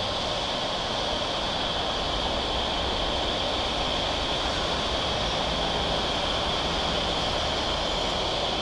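Jet engine noise from an Airbus A320-214 with CFM56 engines rolling out on the runway just after landing: a steady, even rushing sound.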